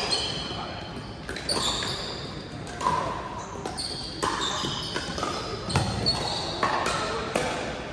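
A pickleball rally: sharp pocks of paddles hitting the hard plastic ball, about one a second and coming closer together in the second half, each echoing in the large gym.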